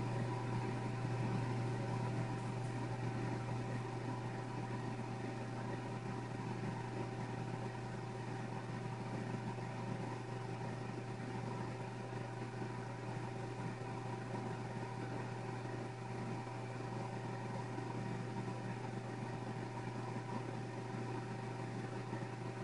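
Steady low hum with a few fainter steady tones above it, unchanging throughout.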